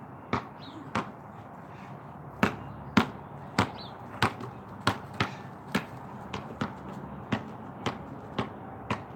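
A basketball dribbled on concrete: a string of about fifteen sharp bounces at an uneven pace, roughly one to two a second.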